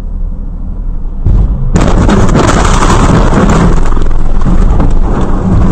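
Rear-end car collision heard from inside the striking car. A steady low road and engine rumble runs first, then comes a sudden loud impact about a second and a half in, followed by several seconds of loud, harsh, crackling crash noise.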